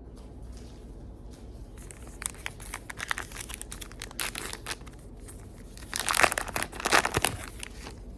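Trading card pack wrapper being torn open and crinkled: scattered crackling from about two seconds in, then a louder burst of tearing about six seconds in.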